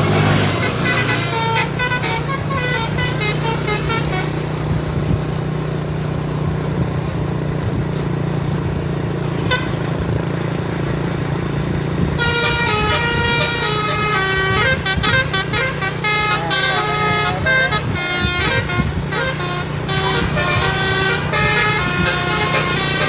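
Tour bus's telolet basuri musical air horn playing a tune in quick stepped notes over a steady low engine hum. It breaks off after a few seconds and starts up again about halfway through.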